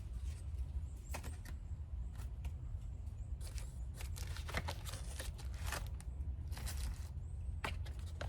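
Packaging and parts of a wireless doorbell camera kit being handled, giving irregular short clicks and rustles over a steady low rumble.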